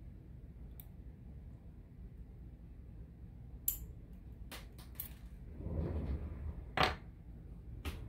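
Scattered sharp clicks and taps of a disassembled Assa Twin Exclusive mogul lock cylinder's metal parts being handled, with a low rumbling handling noise a little over halfway through.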